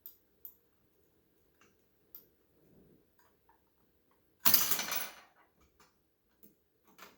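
A few faint small clicks of small metal model parts and tools being handled, then a single loud clatter about halfway through that dies away within about half a second.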